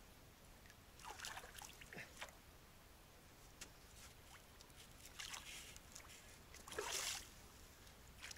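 A hooked chub splashing and thrashing at the water surface while being played on a feeder rod, in short bursts about a second in, around five seconds and again near seven seconds.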